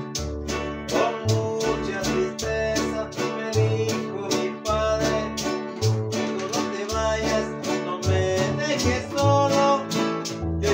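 Acoustic string ensemble playing a song: several guitars strumming and picking over deep bass notes from a large acoustic bass guitar, with maracas shaking in a steady beat.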